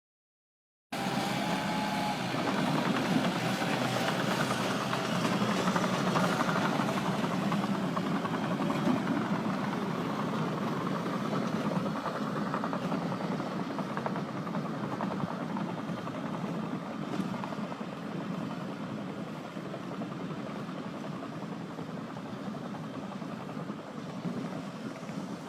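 Heavy diesel earthmoving machinery running steadily under work. It starts abruptly about a second in, after a moment of dead silence.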